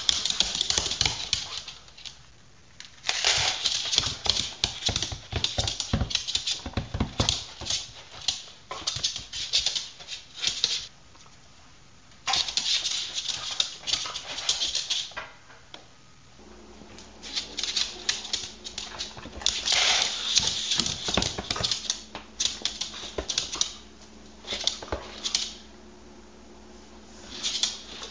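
A corgi's claws clicking and tapping quickly on a hardwood floor as it dances excitedly around its food bowl waiting for supper, in bursts of rapid patter broken by short pauses. A low steady hum comes in about halfway.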